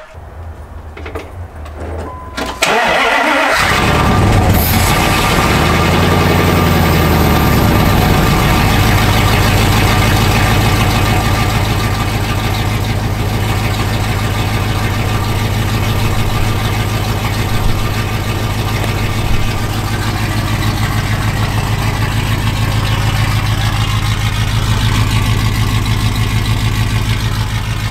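Dodge Ram Magnum V8 cranking on the starter for about two and a half seconds, then firing, flaring up and settling into a steady idle. It runs on open long-tube headers with no exhaust pipes attached, so the idle is loud and raw.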